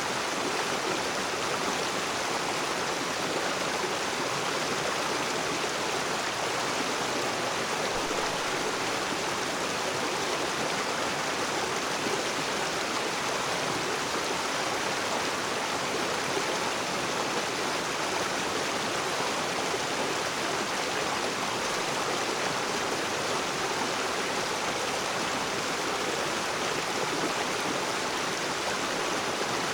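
Rocky river's water rushing and splashing over rocks, a steady, even wash of sound.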